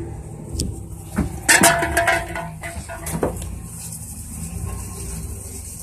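Truck driving along with its engine and tyres making a steady low rumble, with a few knocks and a short burst of a person's voice about a second and a half in.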